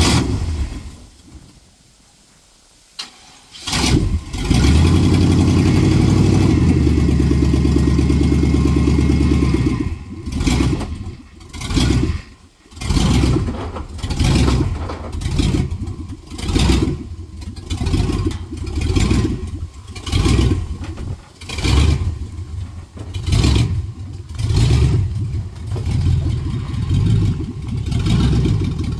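Small-block 5.7-litre V8 of a 1997 GMC K2500 pickup starting about four seconds in and running steadily. From about ten seconds in, its sound rises and falls in regular surges, roughly one every second and a half.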